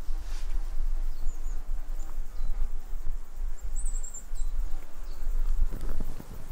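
Woodland ambience: a few short, high chirps and a quick high trill about four seconds in, over a steady low rumble. Near the end comes soft, irregular crackling from the campfire.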